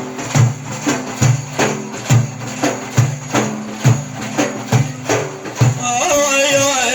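Hand percussion beating a steady rhythm, with a deep stroke roughly every second and lighter strokes in between. Near the end a man's voice comes in on a long, wavering sung note.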